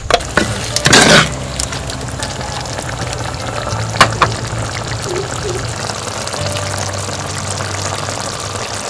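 Prawn curry bubbling and sizzling in a clay pot, with a wooden ladle stirring and knocking against the pot in the first second or so. Two sharp clicks about four seconds in.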